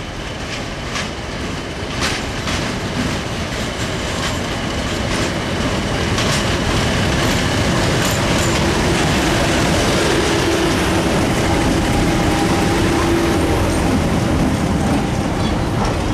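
British Rail Class 50 diesel locomotive, with its English Electric V16 engine, running up and past along a station platform, growing louder as it comes near. Its wheels click over the rail joints, and then the coaches behind it roll by.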